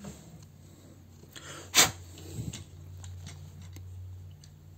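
Hard plastic toy robot figure being handled, with one sharp click a little under two seconds in and a few lighter taps after it, over a steady low hum.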